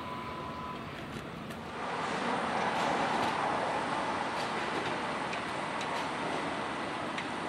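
Kintetsu electric train running past a level crossing: a steady rush of wheel and rail noise that swells about two seconds in, with the crossing's warning bell ringing.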